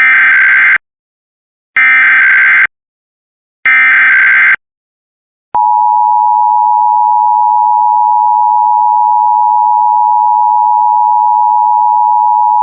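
Emergency Alert System SAME header: three bursts of shrill data tones, each just under a second long and about two seconds apart, then about a second later the steady two-tone EAS attention signal, which carries on to the end. Together they open a statewide required monthly test of the alert system.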